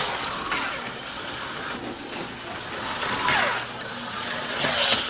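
HO scale slot cars running past on the track, their small electric motors and rail pickups whirring in passes that swell and fade. One pass falls in pitch about three seconds in.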